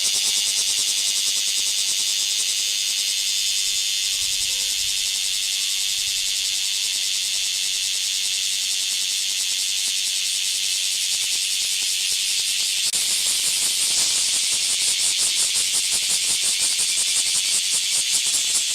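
Chorus of bear cicadas (kumazemi) singing: a dense, steady, high-pitched buzz that turns into a fast, even pulsing over the last few seconds.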